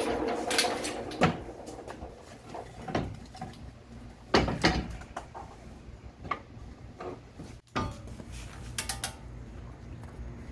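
Scattered metallic clinks and knocks of hand tools and bolts as the lower ball joint is bolted to the steering knuckle, with a quick run of clicks near the end.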